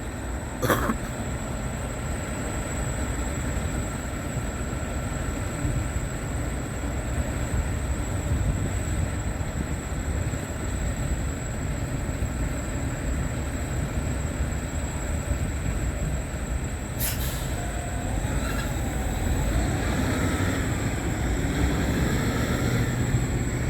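Steady rumble of road traffic from nearby freeway vehicles and trucks, with a short sharp click about a second in and another about 17 seconds in.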